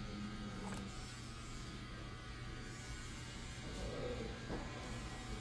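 Steady low electrical hum, with two faint sharp snips of hair-cutting shears closing through wet hair, one about a second in and one near the end.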